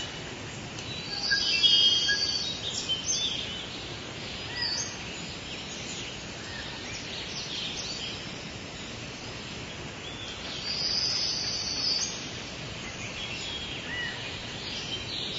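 Birds singing and chirping over a steady background hiss, with louder trilling phrases about two seconds in and again around eleven seconds in.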